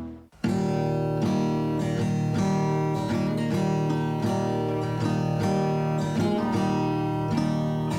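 Background music: a strummed acoustic guitar track with a steady rhythm, coming in after a brief gap about half a second in.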